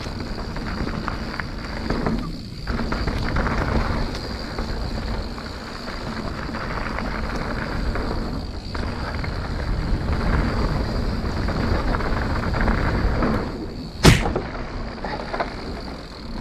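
Mountain bike ridden fast down a bike-park trail, heard from a point-of-view camera: a continuous rumble of tyres on dirt, drivetrain rattle and wind on the microphone, which drops away briefly twice. A single sharp thump comes near the end.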